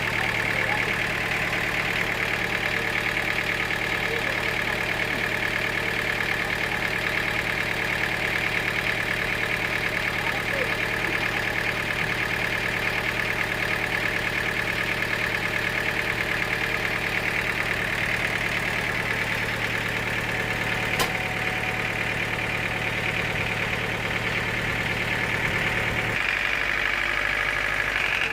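Sawmill machinery running steadily, a constant hum with a higher whine above it. The low part of the hum stops near the end.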